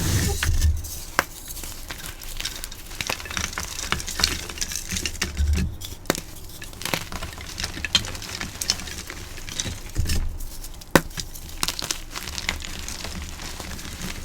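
Blocks of dyed gym chalk being crushed, a dense run of crisp crackles and crunches with a few dull low thumps and one sharp crack a little after halfway.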